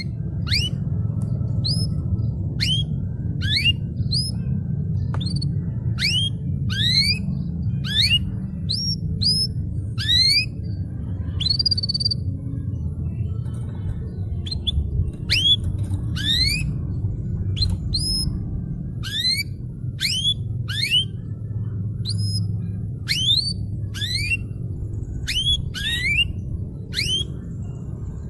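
Domestic canary singing a long series of short, sharply rising whistled notes at about one a second, over a steady low hum.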